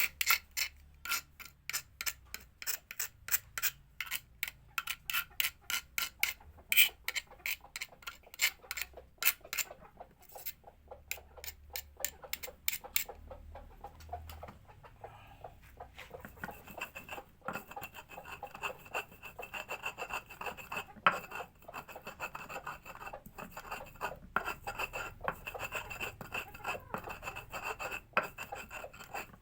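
Garlic and lime leaves being crushed by hand in a stone mortar. First comes a quick run of pestle strikes, about three a second. After about a dozen seconds they give way to steady scraping as the mix is ground against the stone.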